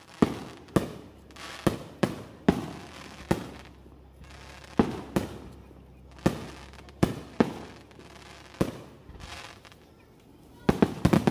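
Aerial firework shells bursting: a string of sharp, echoing bangs at irregular intervals, with a quick cluster of several bangs near the end.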